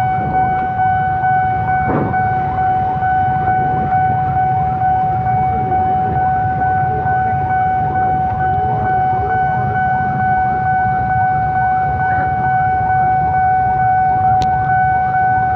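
Railway level-crossing warning signal sounding one steady electronic tone without a break, over the low rumble of idling motorcycle engines.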